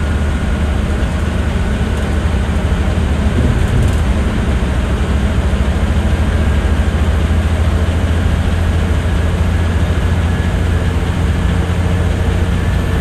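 Steady low rumble of a vehicle driving at speed: engine and tyre-on-road noise heard from on board.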